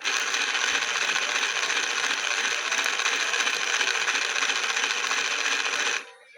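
Washing machine running with a steady, loud rattling noise that starts suddenly and cuts off suddenly after about six seconds.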